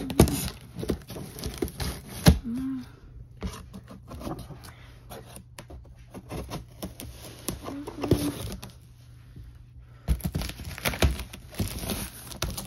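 Scissors cutting and scraping through the packing tape and cardboard of a box, with sharp snips and knocks. Near the end the cardboard flaps are pulled open and handled, with denser rustling and clicks.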